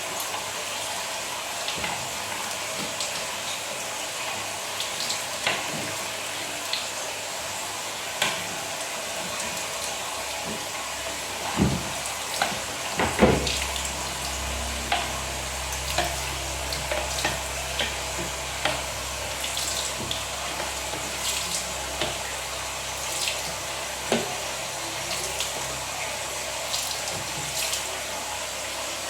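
Water running steadily, as from a tap, with scattered clicks and knocks. About thirteen seconds in, a low steady hum starts up alongside it.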